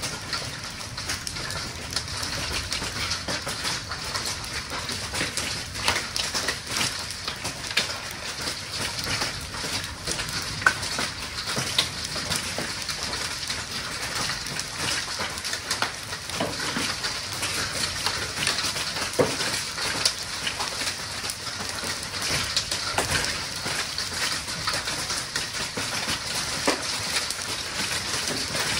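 Hailstones striking rooftop solar panels and the roof, a dense continuous clatter of many small hard impacts with a few sharper, louder hits about eleven and twelve seconds in.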